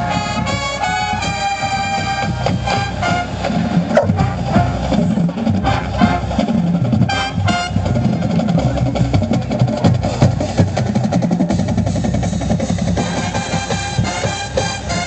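Marching band playing. It opens with sustained brass chords, then for most of the stretch the drums carry the music with a few short brass hits, and the horns come back in near the end.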